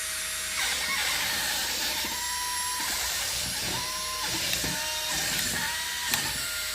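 Wall-climbing RC car's suction fan running with a steady whirring hiss, starting about half a second in. Short whines from its small drive motors come and go four times as it moves, with a sharp click near the end.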